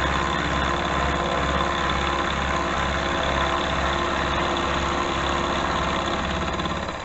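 Milling machine running steadily, a continuous motor hum with a fine rhythmic chatter as it mills a steel block. The sound drops in level just before the end.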